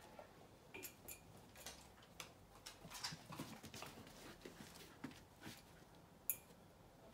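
Faint, scattered clicks of bull terriers' claws on a hard floor as the dogs walk and trot about, with one sharper click about six seconds in.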